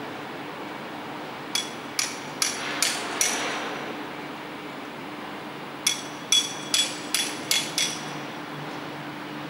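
Hand hammer striking metal in two runs of quick blows, about five starting a second and a half in and about seven more near six seconds in, each blow with a short metallic ring. A steady faint hum runs underneath.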